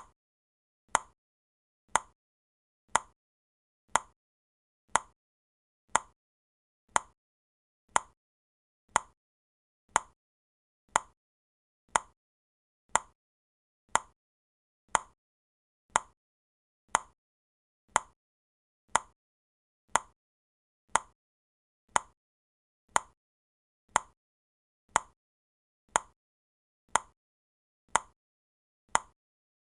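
A countdown timer ticking steadily, one short sharp click a second with silence between.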